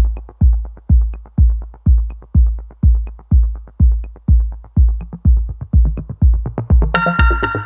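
Electronic background music: a deep, steady kick drum about twice a second with light ticks between the beats, and a synth chord layer coming in near the end.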